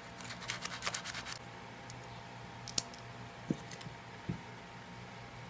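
Light clicks and rattles of small switch parts being handled, a quick cluster of them in the first second and a half, then one sharp click near the middle and two soft knocks shortly after.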